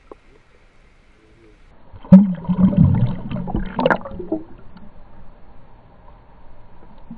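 Muffled water gurgling and churning around a camera held underwater, starting suddenly about two seconds in and loudest until about four and a half seconds, with a faint steady whine underneath.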